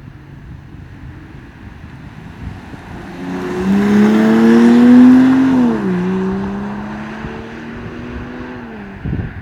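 BMW X5 50e's inline-six exhaust, DCE Parts V2 system with its valves open, accelerating past. The note rises for about two seconds to its loudest, drops with an upshift, then climbs again more quietly as the car pulls away. Wind noise on the microphone before the car arrives.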